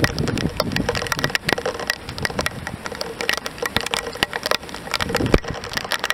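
Heavy downpour: a steady rushing hiss of rain with dense, irregular ticks of raindrops striking close to the microphone, and one louder thump about five seconds in.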